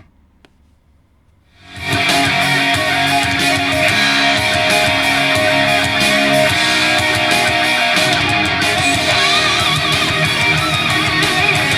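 Guitar-driven rock music played back through a portable Bluetooth speaker. The music stops abruptly at the start, and then comes back in at full level about two seconds later.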